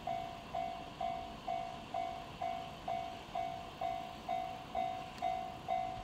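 Japanese railway level-crossing alarm ringing its repeated electronic 'kan-kan' tone, about two strikes a second, each fading before the next: the crossing is active, warning that a train is approaching.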